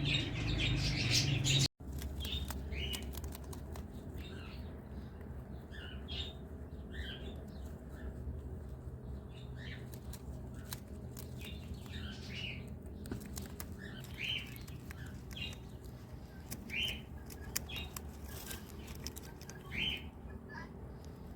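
Birds chirping: dense and louder at first, then an abrupt cut about two seconds in, after which short chirps come scattered every second or so over a low steady hum, with a few light clicks.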